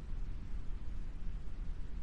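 Steady brown noise: an even, unbroken hiss, heaviest in the bass and growing weaker toward the treble.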